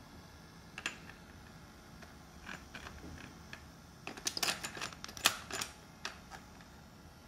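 Hard plastic clicks and clacks of a cassette being fitted into the cassette holder of a Telefunken Bajazzo CR 6000 boombox. There is a single click about a second in, a few small clicks, then a quick cluster of sharp clacks from about four to six seconds in as the cassette is pushed home, the loudest about five seconds in.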